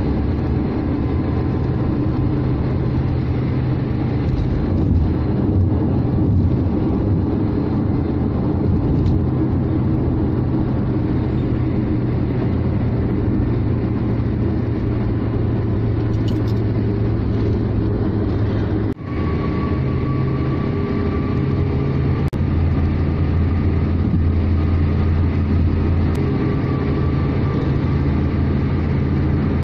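Steady low engine drone and tyre and road noise of a car cruising on a highway, heard inside the cabin. The level briefly dips about two-thirds of the way through.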